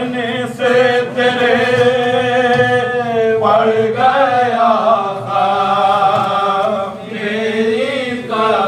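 Men's voices chanting a Shia marsiya, a mourning elegy, in long drawn-out sung lines with a wavering pitch. A new line starts about three and a half seconds in and another near the end.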